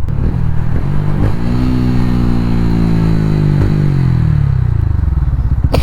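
TVS Ronin 225's single-cylinder engine revving up and then dropping back to idle, its even firing pulses audible near the end. A short sharp click sounds just before the end.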